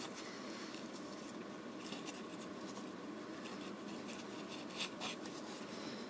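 Faint rustling and crinkling of old paper wrapping unfolded by hand, with a few small crackles, the sharpest about five seconds in, over a steady low hiss.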